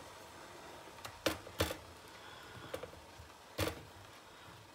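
Pork cutlet being pressed and turned in flour in a stainless steel tray: quiet handling with three sharp knocks, two close together about a second and a half in and one near the end.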